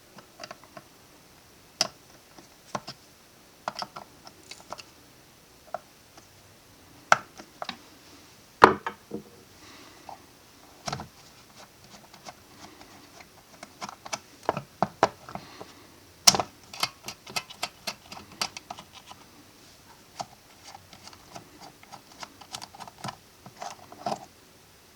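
Irregular clicks and light taps of small metal and plastic parts as an ABU Ambassadeur 7 trolling reel's side plate is taken off. The two sharpest knocks come about 8 and a half and 16 seconds in, with denser runs of clicking around 14 to 18 seconds and again near the end.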